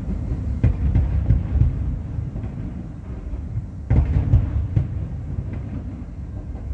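Fireworks shells bursting in the distance: a continuous low rumble broken by sharper booms about half a second and a second in, and a louder cluster of booms about four seconds in.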